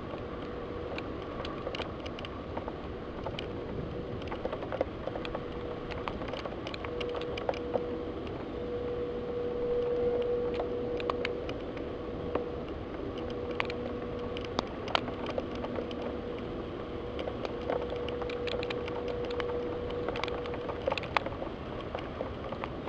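Steady rain with scattered drops tapping sharply and irregularly on the window glass, over a faint steady hum.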